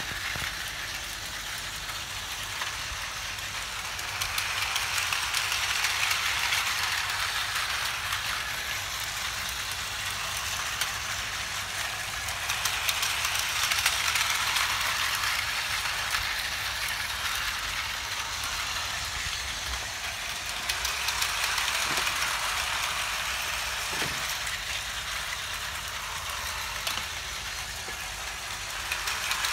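Tomy Plarail battery toy trains, including an E5 Shinkansen, running on plastic track: a steady high motor whir with fine clicking, swelling louder several times as a train passes close.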